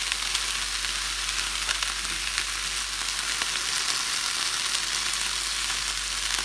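Diced green peppers, onions and red pepper sizzling steadily in a frying pan, stirred with a plastic spatula that scrapes and ticks against the pan.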